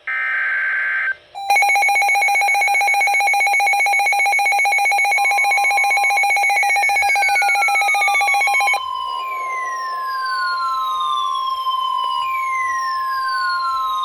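Emergency Alert System alert signals. The end of a warbling SAME data burst lasts about a second. It is followed by the pulsing two-tone EAS attention signal for about seven seconds, then a single steady weather-radio alert tone. Repeating falling whistle-like sweeps run over the last half.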